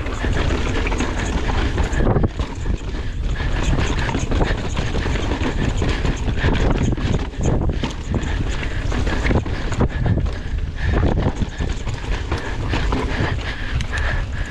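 Mountain bike running fast down a rough trail: tyres on dirt and the bike rattling over bumps, with many quick knocks over a steady low rumble.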